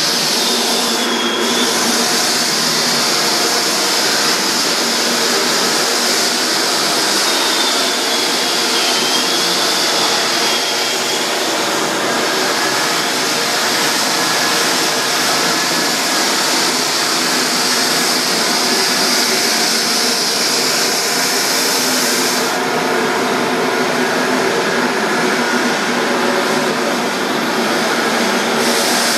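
Drum floor sander running steadily on hardwood, its motor and dust-collection fan giving a loud, even noise with no letup.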